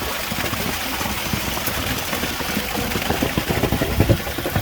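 Concrete pump truck's engine running steadily, with a run of low knocks about three to four seconds in.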